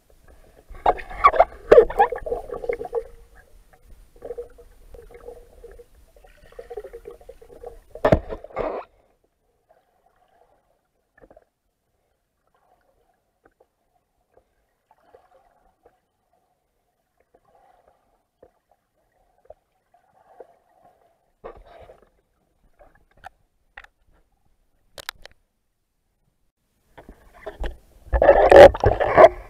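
Underwater bubbling and gurgling heard through an action camera's waterproof housing, in bursts: one about a second in, a short one about eight seconds in, and a louder, longer one near the end, with long stretches of near silence between.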